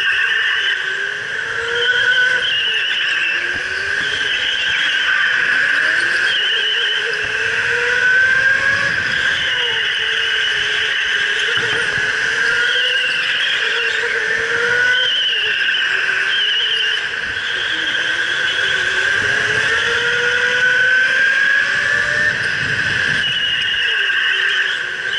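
Electric go-kart motor whining, rising in pitch as the kart accelerates and dropping back into corners, over and over. Tyres squeal on the sealed concrete floor through the turns.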